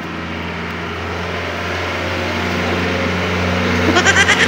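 Diesel engine of a passenger jeepney running as it approaches, growing steadily louder. About four seconds in, a quick run of short, high beeps sounds.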